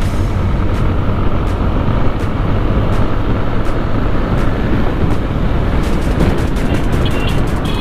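Motorcycle being ridden at a steady pace, its engine running under a constant rush of wind on the microphone.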